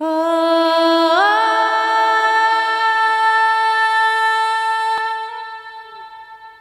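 Intro music: one long sung note that slides up in pitch about a second in, holds steadily, then fades away over the last second and a half. A faint click sounds near the five-second mark.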